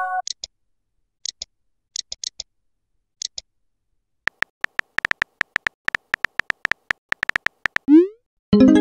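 Texting-app sound effects: a few faint double clicks, then a fast run of keyboard-tap ticks as a message is typed, followed about eight seconds in by a short rising whoosh as the message is sent and a brief chime.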